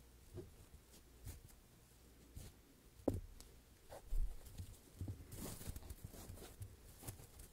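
Foam blocks handled close to the microphones: scattered soft taps and scratches, with two louder thumps about three and four seconds in and a short rustling scrape soon after.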